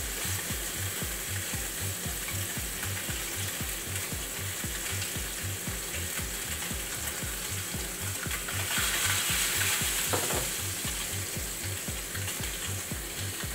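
Sea bass fillets frying in a hot non-stick pan: a steady sizzle that swells louder for a couple of seconds past the middle. Underneath runs a low throb pulsing about three times a second.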